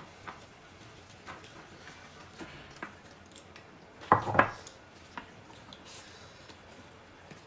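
Chopsticks and tableware clinking lightly against a plate and hotpot as rolled pork slices are placed into the pot, with a louder double clatter about four seconds in.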